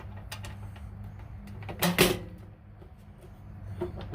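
RV water heater access door and its newly fitted cam-lock latch being handled: a few light clicks, then a sharp knock about two seconds in, the loudest sound.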